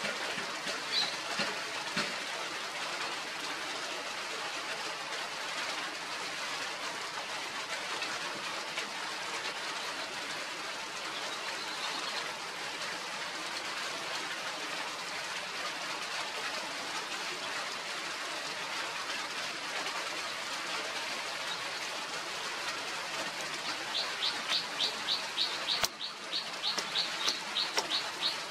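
Steady background hiss, then near the end a small bird starts chirping fast, several short high chirps a second. A single sharp click comes shortly before the end.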